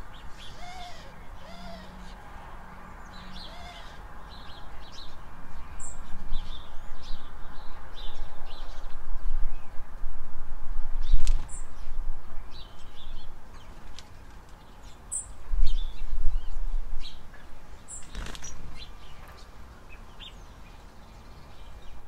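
Small garden songbirds calling around a seed feeder: many short, high chirps and tweets scattered throughout, with a few louder low thumps and knocks in the middle.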